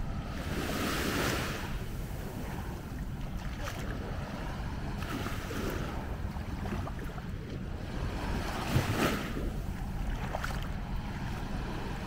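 Small sea waves breaking and washing up the sand, a hissing surge about every four seconds, over a steady rumble of wind on the microphone. A short knock stands out about nine seconds in.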